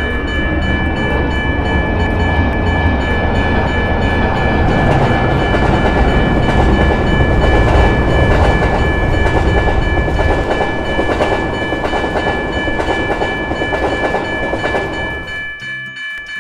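Train passing a railroad crossing: a loud rumble with a clickety-clack of wheels on rails, building and then fading out about a second before the end. A steady high-pitched chord is held over it the whole time.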